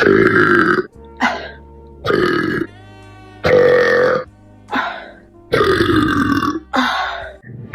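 A woman burping over and over: four long, deep burps with shorter ones between them.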